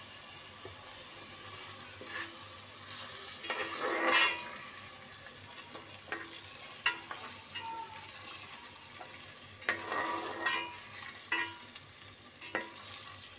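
Washed rice frying in oil in an aluminium pot, sizzling steadily as its water cooks off. A slotted metal spatula stirs it, scraping and clinking against the pot every second or two, most strongly about four seconds in and again around ten seconds.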